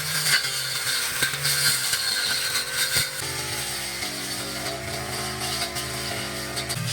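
A small engine runs steadily, its pitch shifting slightly about three seconds in, with scattered sharp clicks.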